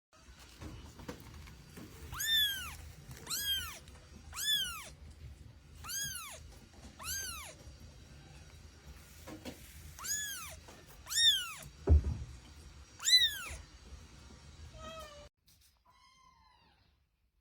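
Kitten meowing over and over, about eight high, arching meows that each rise and fall in pitch, followed by a few fainter ones. A single dull thump comes between the later meows.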